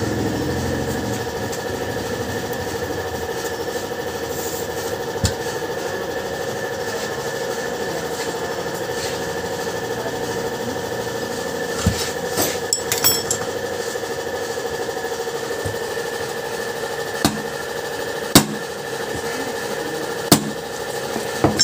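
Hammer blows on a dented motorcycle wheel rim being straightened by hand: single sharp strikes spaced irregularly, one about five seconds in, a quick cluster around the middle, then a few more near the end. A steady hum runs underneath.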